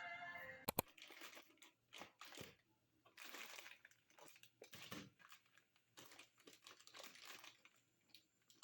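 Two sharp clicks about a second in, then quiet, irregular crinkling and rustling, as of something being handled at close range.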